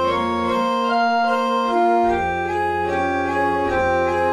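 Instrumental keyboard music: slow, sustained organ-like chords that move from note to note. The deep bass drops out for about a second near the start, then comes back.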